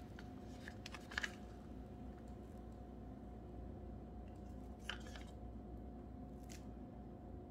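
Quiet handling sounds: a few faint clicks and taps from a wooden craft stick and a plastic paint cup as gold paint is dripped onto the tile, about a second in, about five seconds in and again near the end, over a steady low hum.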